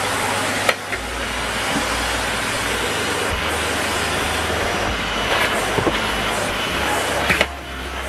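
Numatic Henry cylinder vacuum cleaner running steadily while its hose nozzle is worked over carpet, with a sharp knock about a second in and another near the end.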